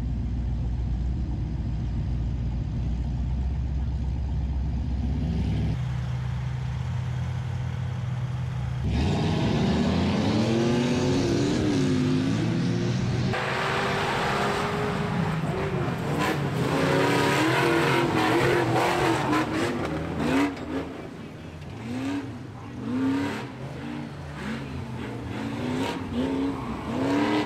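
Off-road rock buggy engines, idling steadily at first, then revved up and down again and again as the buggies drive and climb.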